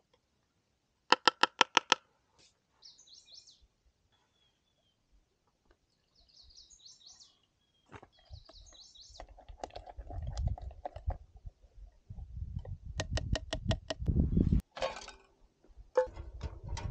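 Two quick runs of sharp metallic clinks from camp cookware, a spoon against a metal cup or pot, with knocking and rustling as the gear is handled. Birds chirp at intervals in the background.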